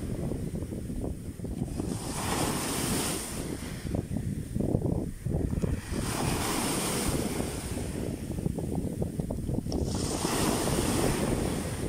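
Small sea waves breaking and washing in at the shoreline over stones, a fresh wash of surf about every four seconds, with wind rumbling on the microphone.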